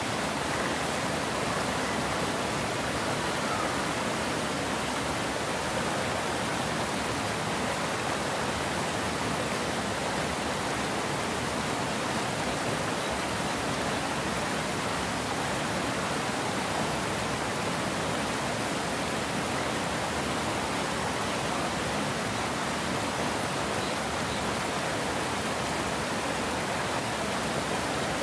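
Water pouring over a low concrete weir into churning white water below: a steady, even rush.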